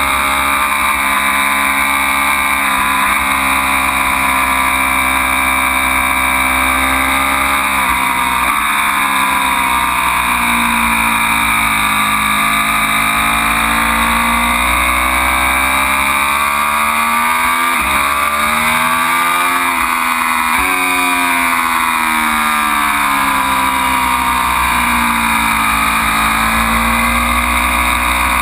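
Ducati Panigale V4's V4 engine revving at racing speed, its pitch falling and climbing again several times, with a few sudden jumps in pitch as it changes gear, under a steady rush of wind.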